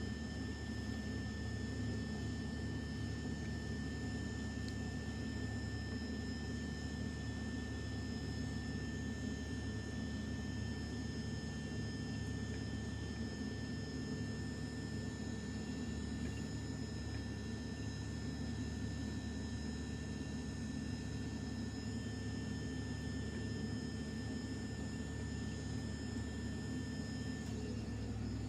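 Refrigerator machinery running steadily: the three-phase compressor and the condenser fan motor making a constant hum with a few fixed tones. A thin high tone stops near the end.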